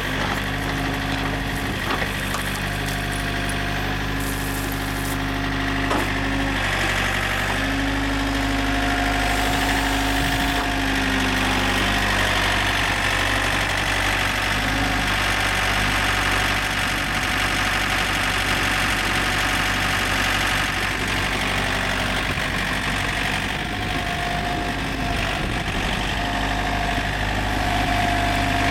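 Yanmar backhoe's diesel engine running steadily, with a couple of sharp knocks in the first few seconds.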